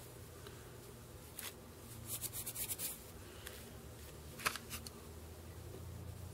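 Faint fly-tying handling sounds: a few soft clicks and, about two seconds in, a quick run of crisp rustling ticks as a pair of teal flank feathers is trimmed down to size for the cheeks, over a low steady hum.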